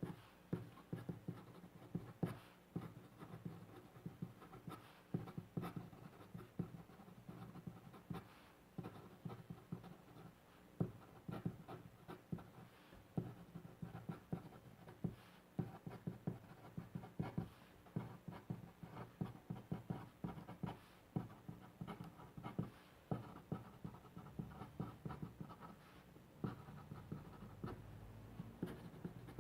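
Pen writing on paper: a steady run of short, irregular scratching strokes and light taps of the nib as characters are written.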